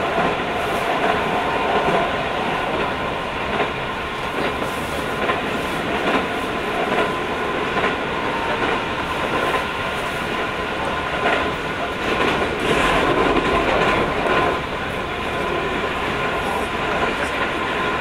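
Interior running noise of a Keio 5000 series electric train car at speed: steady rumble with a constant high hum and regular clicks of the wheels over rail joints. The noise grows louder for about two seconds around twelve seconds in.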